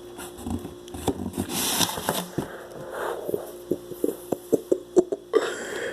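Rustling of handled packaging, then a quick run of about ten light clicks and taps near the end as the parts of a dirt-bike engine rebuild kit are handled.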